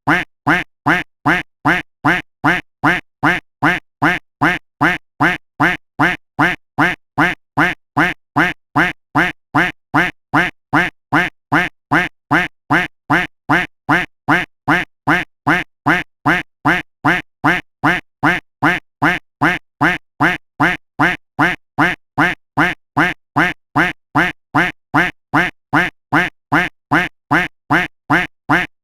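A duck quack sound effect looped over and over: the same short quack repeated at an even pace, about two a second, each one identical.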